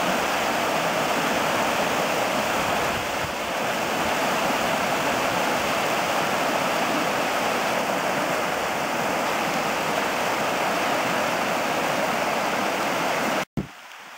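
Creek water rushing over a rocky riffle of whitewater rapids: a steady, even roar of flowing water. It cuts off abruptly near the end, giving way to a quieter rush.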